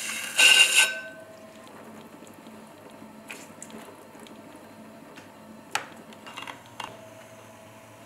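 A tool scraping the wet clay at the foot of a mug turning on a pottery wheel gives a loud, squealing rasp in the first second. After that the wheel runs with a low steady hum, broken by a few faint clicks and squishes of the sponge and hands on wet clay.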